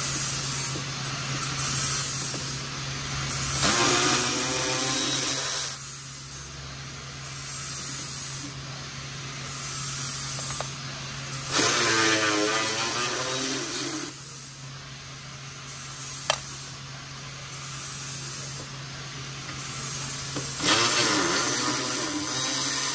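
A handheld power tool runs in three bursts of about two seconds each, its pitch sliding up and down as it spins out the 15 mm bolts that hold a motor mount to the K-member. A steady low hum runs underneath.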